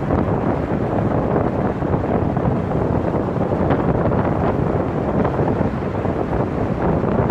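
Wind buffeting the microphone of a camera mounted on the outside of a moving car, mixed with steady tyre and road noise. The noise is loud and constant, heaviest in the low and middle range.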